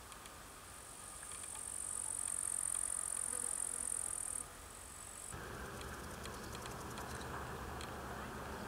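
An insect stridulating in a thin, high, steady buzz that stops abruptly about four seconds in and comes back briefly. After about five seconds a steady low rushing noise takes over, with faint ticks throughout.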